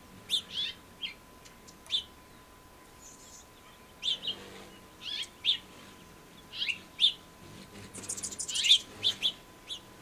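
Small songbirds chirping: short, high chirps in little clusters every second or so, with a quick rattling run of notes near the end.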